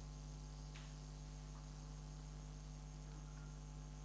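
Steady electrical mains hum with its evenly spaced overtones, low in level, and a faint click just under a second in.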